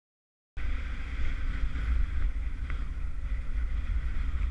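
Silence, then, about half a second in, wind buffeting the microphone starts abruptly: a loud, steady low rumble with a hiss above it.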